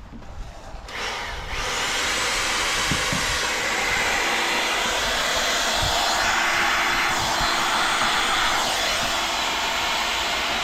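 Heavy rain hissing steadily, loud and even; it comes up about a second and a half in and holds.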